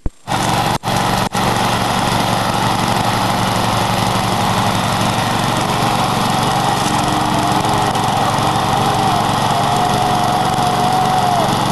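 Lawn mower's small engine running steadily, with two brief dropouts in the first second and a half. A faint wavering whine rides over it in the second half.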